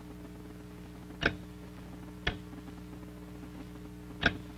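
Telegraph key being worked: three sharp clicks, unevenly spaced, as an operator sends a message. A steady low hum runs underneath.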